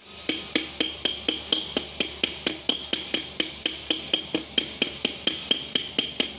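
Hammer tapping a steel punch to drive a part into the bore of a diesel injection-pump timer: quick, even metal-on-metal strikes, about four a second, each with a short bright ring.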